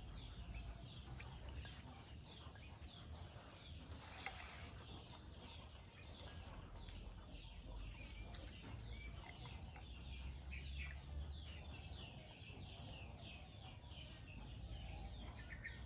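Birds chirping steadily in the background, many short falling notes several a second, over a low rumble. A brief hiss comes about four seconds in.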